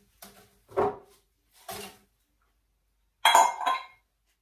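Quartered rice cakes dropped by hand into a Thermomix's stainless-steel mixing bowl, a few light knocks, then a louder ringing clink of a glass bowl set down on the worktop a little over three seconds in.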